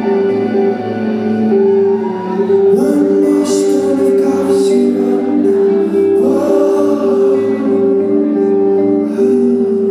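Indie rock band playing live, with a lead vocal over steady, held notes.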